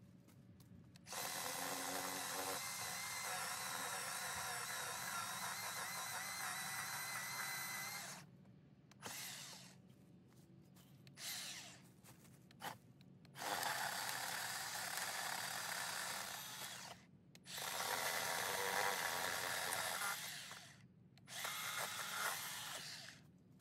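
Electric power saw cutting a log in stop-start runs: one long run of about seven seconds, two short blips, then three more runs of three to four seconds each. The motor's whine wavers in pitch and stops completely between runs.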